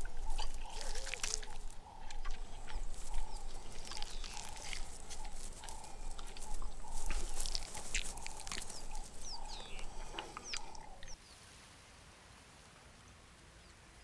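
Spotted hyena chewing on bone and hoof, with a run of sharp cracks and crunches as its teeth work through the bone. A repeated clucking call and a few short chirps sound behind it. About 11 seconds in the sound drops away to near silence.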